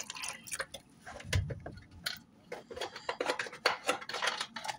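Kitchen utensils and dishes being handled: a run of light, irregular clicks and clinks, with one dull thump about a second and a half in.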